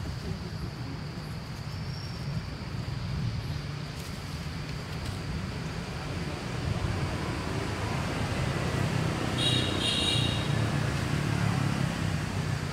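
Steady low rumble of motor traffic. About nine and a half seconds in come two short high-pitched chirps in quick succession.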